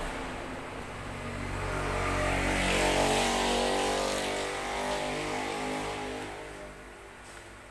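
A motor vehicle engine passing by, growing louder to a peak about three seconds in and then fading away.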